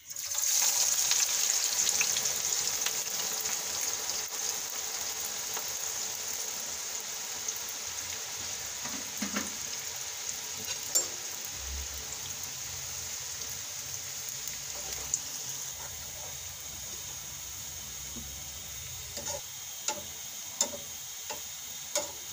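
Sliced onions hitting about a cup of hot oil and frying, with a sizzle that starts suddenly and slowly eases into a steady hiss as the onions fry to brown. A slotted metal spoon stirs them, knocking lightly against the pan now and then, more often near the end.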